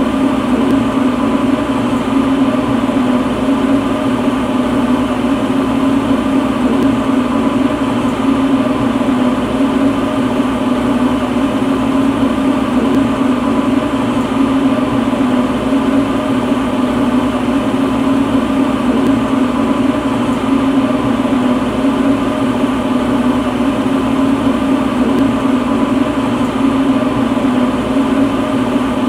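Lampworking glass torch burning: a steady, unchanging roar with a low hum that holds level throughout.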